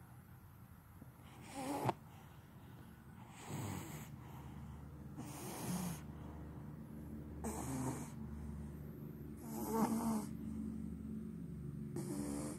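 Snoring: about six snores, roughly two seconds apart.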